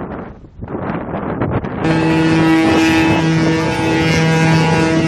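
Wind buffeting the microphone over sea noise, then, about two seconds in, a large ship's horn sounding long, steady blasts that break off and resume.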